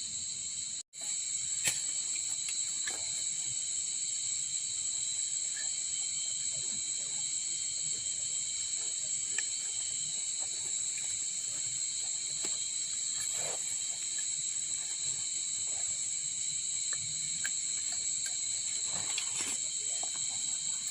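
Steady high-pitched chorus of insects droning without a break, with a few faint clicks and knocks over it. The sound drops out for an instant about a second in.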